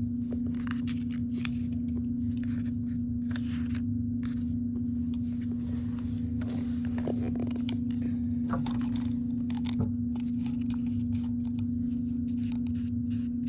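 Short rustles and scrapes of paper and cardboard as hands rub a foam-and-cardboard collagraph plate onto paper and handle it, over a steady low hum.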